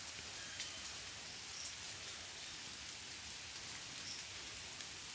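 Faint, steady hiss of light rain falling on the surrounding trees and undergrowth, with a few scattered ticks of drops.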